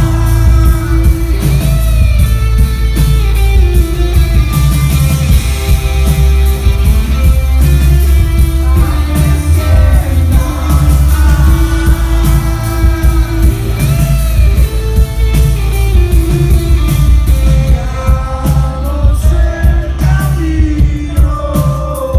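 Rock band playing live through a PA, heard from the audience: sung lead vocals over electric guitar, keyboards and drums, with a heavy low end.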